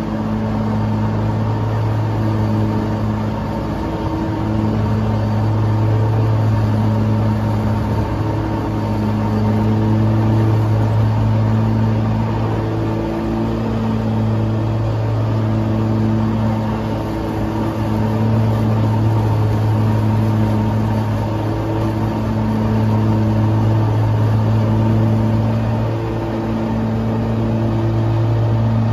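Kawasaki FX730V V-twin engine of an Exmark Lazer Z E-Series zero-turn mower running steadily while mowing, a loud, even drone that swells and eases slightly.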